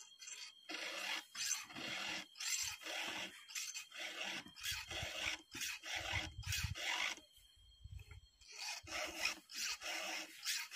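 A chain file sharpening the cutters of a Stihl chainsaw's chain by hand: short rasping strokes, two or three a second, with a brief pause about seven seconds in before the strokes resume.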